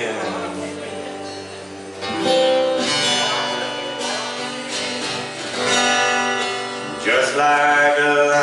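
An acoustic guitar is strummed while a man sings a slow song over it, his voice swelling about two seconds in and again near the end.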